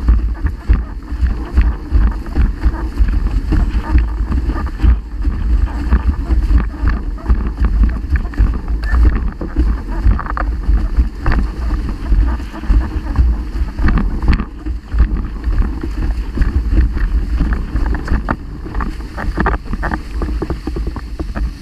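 Heavy wind buffeting on the microphone, a loud fluctuating low rumble, over water rushing and splashing along a windsurf board under sail.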